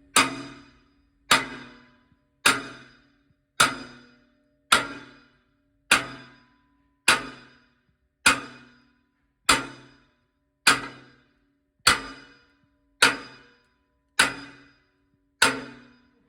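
Hammer blows on a drift, driving a split fire tube out of a traction engine boiler: a steady run of sharp metal strikes a little more than once a second, each ringing briefly before the next.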